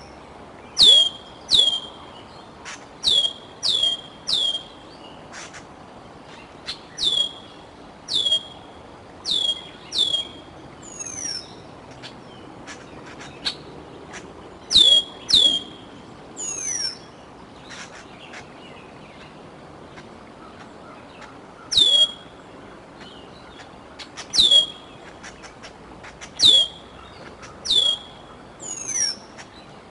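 Juvenile bald eagle giving repeated begging calls: short, high whistles that drop steeply in pitch, mostly in pairs every second or two, with a few longer falling slurs between them.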